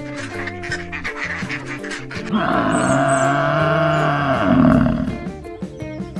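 Background music over animal calls. Short sharp calls in the first two seconds, then a loud, long, drawn-out call from about two seconds in that lasts about three seconds.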